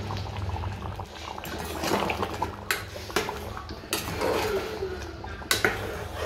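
A steel ladle stirring thick mutton curry gravy in an aluminium pressure cooker: wet sloshing, with several clinks of the ladle against the side of the pot.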